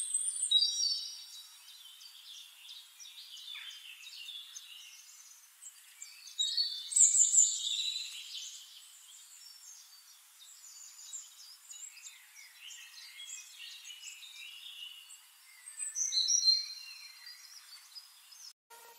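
Small birds chirping and singing in short trills and twitters, with louder bursts near the start, about seven seconds in and around sixteen seconds.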